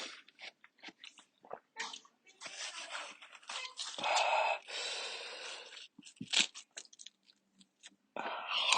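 A person biting into and chewing watermelon, with crunching in irregular bursts and short pauses between them. The longest, loudest stretch of chewing starts about four seconds in.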